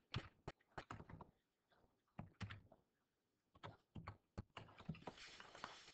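Faint, irregular clicks and taps, a dozen or more short ones scattered through a near-silent pause, with a soft rustle near the end.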